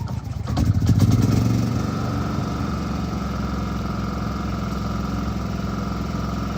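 Champion portable inverter generator's engine starting: it cranks, catches and surges for about a second, then settles into a steady run.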